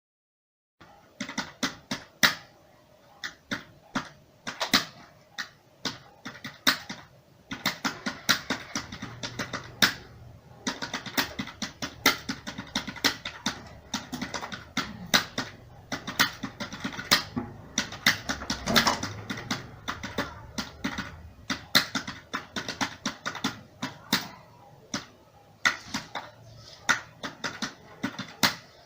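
Computer keyboard being typed on at a typing-test pace of about 45 words per minute: a fast, uneven run of key clicks, with a few louder strokes, starting about a second in.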